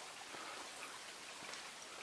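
Small rocky mountain stream trickling: a steady, even wash of running water.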